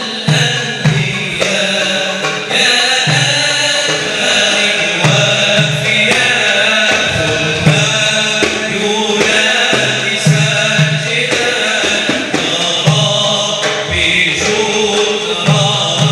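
Men singing a slow, chant-like Arabic song with musical accompaniment, held continuously.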